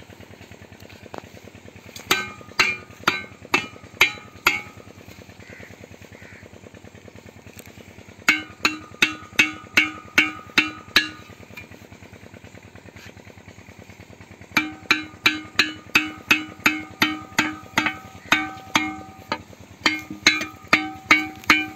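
Homemade mini diesel engine running steadily under the pump. Over it, three runs of loud, sharp, ringing pitched strikes come about two to three a second, the last run starting about two-thirds of the way in.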